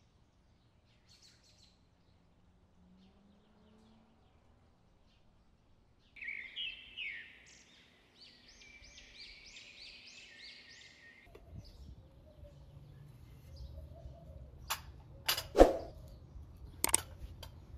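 A songbird sings a phrase of quick repeated chirping notes for about five seconds. It follows several seconds of near silence. Near the end come a few sharp clinks of kitchen utensils on metal and crockery over a low steady background.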